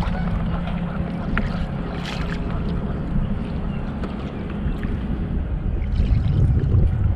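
Wind buffeting the microphone over the sound of water around a kayak, a steady low rush that grows louder for about a second near the end.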